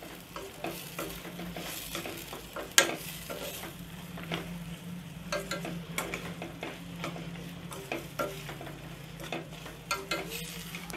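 A spoon repeatedly scraping and stirring grated coconut, tomato and onion sautéing in a stainless-steel pan, with a low sizzle of frying and a sharper knock against the pan about three seconds in. A steady low hum runs underneath.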